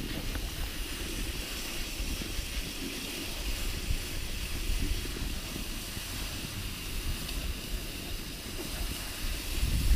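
Rossignol cross-country skis hissing over packed snow on a fast downhill glide, with wind rumbling on the microphone. The wind rumble grows louder near the end.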